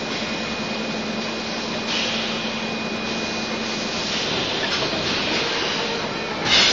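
DKW12T six-head extrusion blow molding machine running in production: a steady mechanical noise with a faint hum. A short hiss of air comes about two seconds in, and a louder one near the end.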